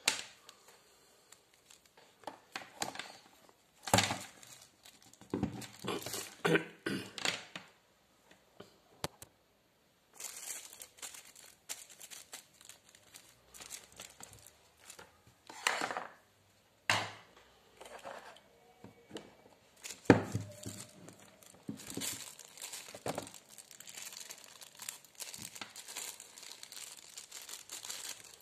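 Clear plastic bag crinkling and rustling in irregular bursts as a new drill's cord and chuck key are unwrapped by hand, with a few sharp knocks from handling.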